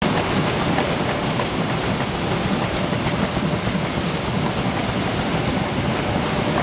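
Automatic folder gluer for corrugated cardboard boxes running, a steady even mechanical rush as flat box blanks feed through it.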